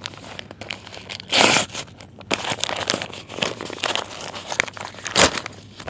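A USPS cardboard mailer being torn open and its packaging handled: tearing, crinkling and rustling of cardboard and paper in irregular bursts, loudest about a second and a half in and again near the end.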